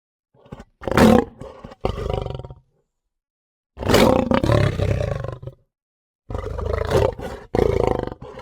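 Lion roaring and growling in three bouts of about two seconds each, the last cut off abruptly.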